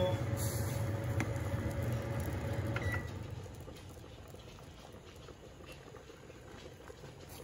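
Wooden spoon stirring a milk-and-cheese sauce in a nonstick pot, with soft patter and simmering of the melting cheese. A steady low hum under it stops about three seconds in.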